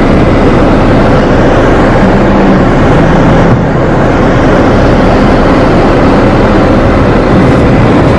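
Loud, steady rumble of a moving road vehicle: engine, tyre and wind noise, with no breaks.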